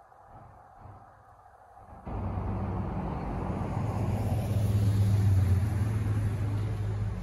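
Pickup truck driving past close by: after about two seconds of near quiet its engine and tyres come in suddenly as a steady low hum, loudest about five seconds in as it passes, then easing off.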